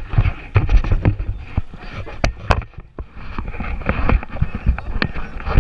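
Water sloshing and slapping against the hull of a Yamaha jet ski sitting with its engine off, heard as irregular low thumps, with a couple of sharp clicks about two and a half seconds in.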